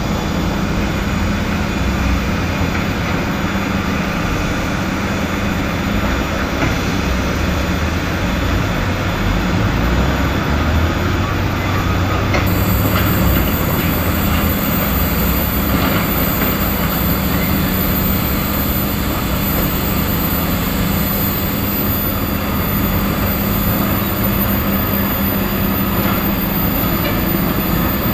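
Steady mechanical rumble and hiss with a constant low hum, unbroken throughout; the high hiss changes about twelve seconds in.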